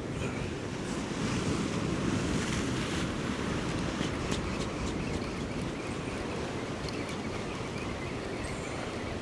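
Sea waves washing onto shoreline rocks on a flooding tide, swelling about a second in and easing after, with wind on the microphone.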